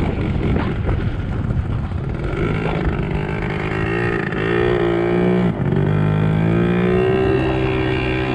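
Small single-cylinder bike engine running under throttle. It is rough at first, then revs with its pitch rising and falling, dips for a moment about five and a half seconds in, and settles into a steadier, higher note near the end.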